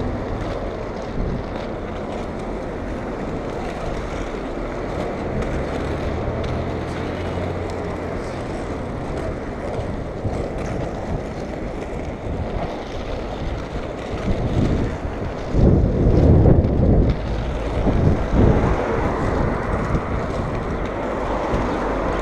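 Wind rushing over a moving camera microphone above the rolling of inline skates on asphalt, with city traffic. A low engine hum sits under it in the first third, and the wind rumble is heaviest about two-thirds of the way through.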